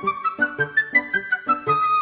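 Background music: a flute-like lead melody stepping up and down over a steady, quick beat.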